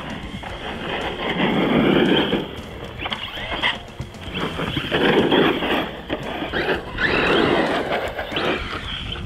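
Team Corally Kronos XTR RC truggy on 6S, its 1650kV Hobbywing brushless motor whining up in pitch in three hard bursts of acceleration. With each burst the tyres scrabble and skid over gravel and dirt. The bursts come about one and a half, five and seven seconds in.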